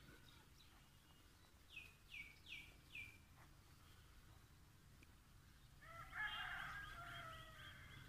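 Domestic birds calling faintly: four short falling chirps about two seconds in, then a louder, longer chattering call from about six seconds in.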